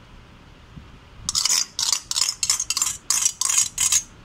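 Metal spoon scraping against a steel mixing bowl in about eight quick strokes, roughly three a second, as yogurt is mixed into spiced raw chicken for a marinade.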